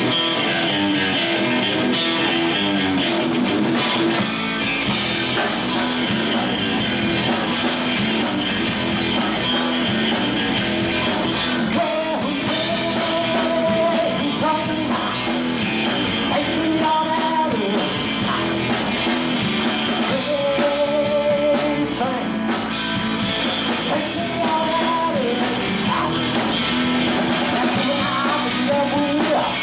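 Live rock band playing: electric guitar, bass guitar and drum kit, with a man singing lead from about twelve seconds in.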